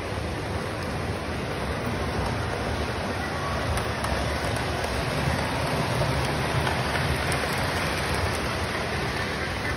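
Model train running on layout track, a steady rumble of wheels and motor that grows somewhat louder in the middle as the train comes close.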